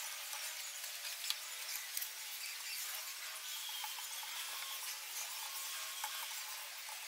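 Faint metallic clicks and ticks from a hand tap being turned in a T-handle tap wrench, cutting threads into a steel channel, over a steady hiss; the sharpest clicks come about a second in and again at two seconds.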